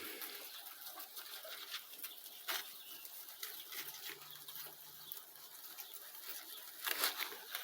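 Faint scattered rustling and small clicks of guinea pigs moving about and chewing in cut grass.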